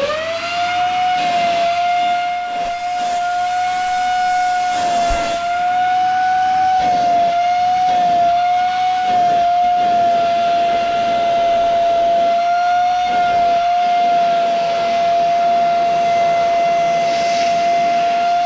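Kent Storm handheld vacuum cleaner running with its crevice tool fitted, its motor a loud steady high whine with a rushing hiss of air. The motor spins up quickly at switch-on, and the pitch wavers slightly as the nozzle works over a dusty chair.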